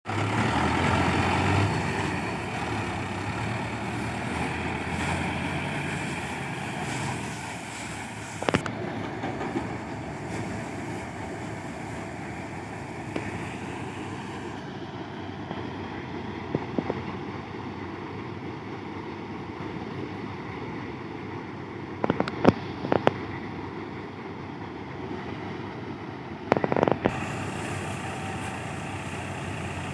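Mahindra 800 tractor's diesel engine running steadily, with a few short sharp knocks, twice in quick clusters.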